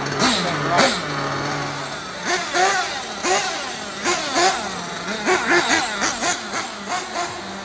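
Nitro engine of a 1/8-scale Tekno NB48.3 buggy (Novarossi) revving in a run of short throttle blips, its pitch shooting up and dropping back each time. It is a new engine being dialed in.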